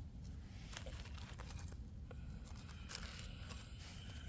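Faint rustling and crinkling with a few small scattered clicks, over a steady low rumble: close handling and movement noise.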